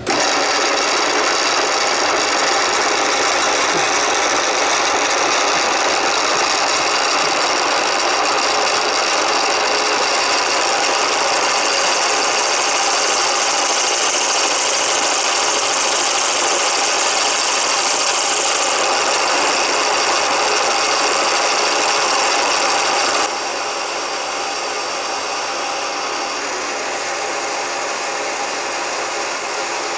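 Milling machine drilling into a steel block: a steady motor and spindle whine with cutting noise. It drops to a somewhat lower level about 23 seconds in and carries on.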